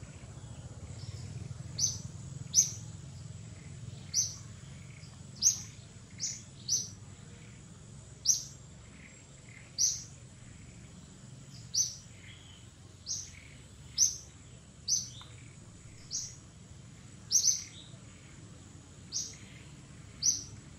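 A bird giving short, high chirps every second or two, some in quick pairs, over a steady low background rumble.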